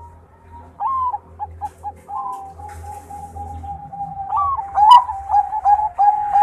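Zebra dove (a Thai 'Bangkok' perkutut) singing. A few short cooing notes come about a second in, followed by a long rolling string of coos that grows louder toward the end.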